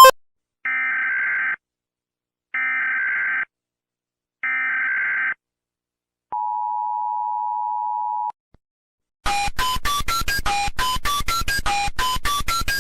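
Emergency Alert System signal: three short raspy data bursts of the SAME header, a second apart, then a steady attention tone held for about two seconds. Near the end comes a loud, fast run of short electronic tones jumping between pitches.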